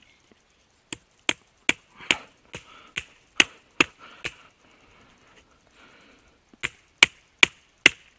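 Pocket knife blade chopping into the wood of a sapling: sharp chops about two and a half a second, nine in a row, a pause of about two seconds, then four more.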